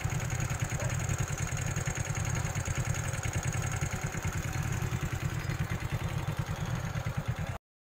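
Motorcycle engine idling steadily with a fast, even low pulse, cut off abruptly near the end.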